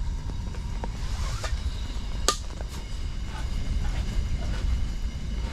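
Strong wind buffeting the microphone, a steady low rumble, with a single sharp click a little over two seconds in.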